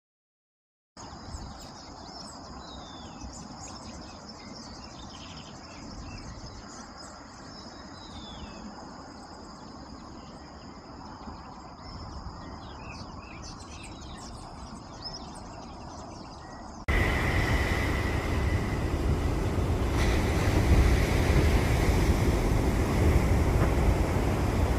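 Wild birds chirping and calling over a steady high-pitched whine and soft background noise; about seventeen seconds in this cuts off abruptly to a much louder, low rushing noise.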